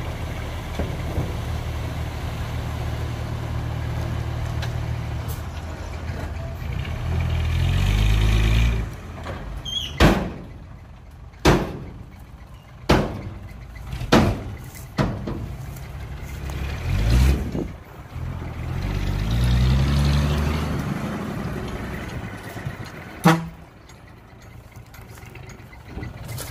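Diesel engine of a cab-over dump truck running while the truck tips a load of soil. The engine revs up twice, rising then falling in pitch, and there are about seven short sharp sounds in between.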